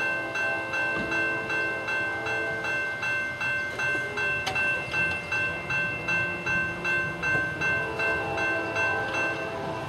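Railroad grade crossing warning bell ringing rapidly and evenly, about three strokes a second, as the crossing signals warn of an approaching train. The bell stops near the end.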